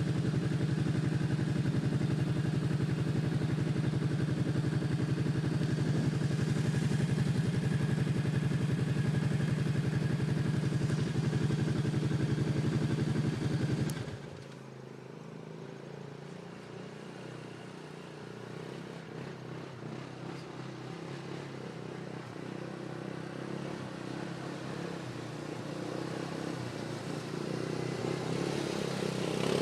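ATV engine running steadily close by. About halfway through the level drops suddenly and the engine sound fades back, then grows slowly louder toward the end.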